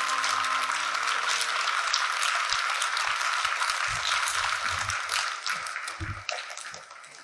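Audience applauding, the clapping dying away over the last two seconds.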